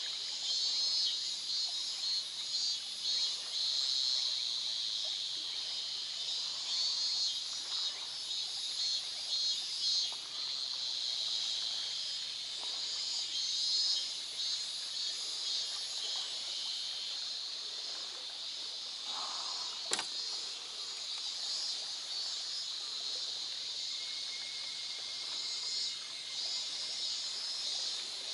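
Chorus of higurashi cicadas (Tanna japonensis) calling: a dense, high-pitched pulsing shrill that swells and eases. There is one sharp knock about 20 seconds in.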